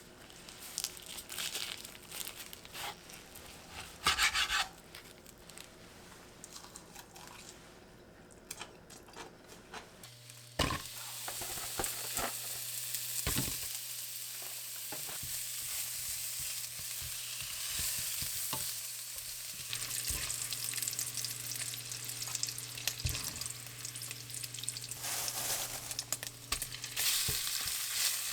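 Food sizzling in a hot pan, starting suddenly about ten seconds in, with the clicks and scrapes of a utensil stirring it. Before that come a few light kitchen knocks and rustles.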